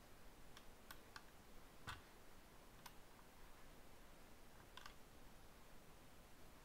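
Near silence: quiet room tone with about six faint, sharp clicks scattered through the first five seconds, the clearest a little under two seconds in.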